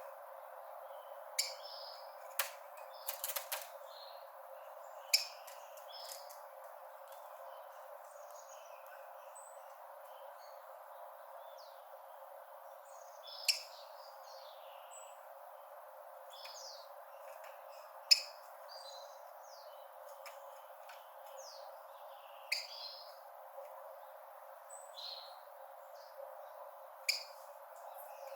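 Rufous-collared sparrow (tico-tico) calling: short, sharp high chirps every few seconds, with softer, thinner notes in between, over a steady background hiss.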